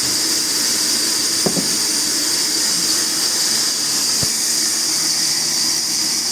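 Large sawmill saw running steadily with a loud, even hiss and a low hum, with two short knocks, about a second and a half in and about four seconds in.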